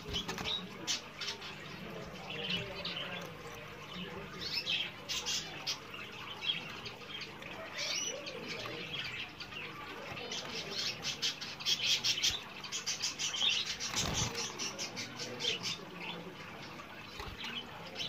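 Yellow domestic canary in a cage chirping with short high calls and quick runs of notes, its wings fluttering as it hops between the perches.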